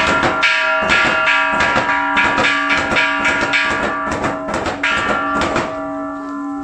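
Rapid, uneven drum strikes and other percussion over a steady ringing tone, the accompaniment to a torch-bearing demon fire rite. The strikes stop about a second before the end while the ringing tone holds on.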